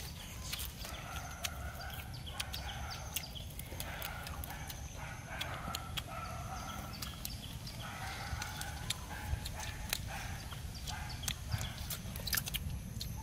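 Chickens clucking again and again in the background, with scattered sharp clicks of snake bones being picked apart and bitten.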